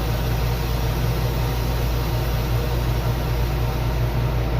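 Steady static hiss over a low droning hum, from the soundtrack of a mock emergency-alert (EAS scenario) video.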